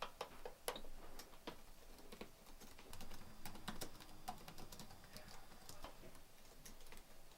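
Faint, irregular light clicks and taps, a few a second.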